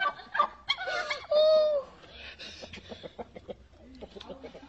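Chickens squawking: a run of short calls, then one longer, loud squawk about a second and a half in, followed by faint scuffling and clicks.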